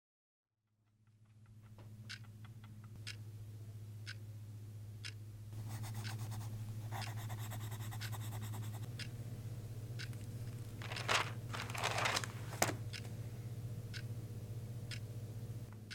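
A quiet room with a steady low hum fading in, a clock ticking about once a second, and pencil scratching on paper, denser in the middle, with a couple of louder scraping rustles a little past halfway.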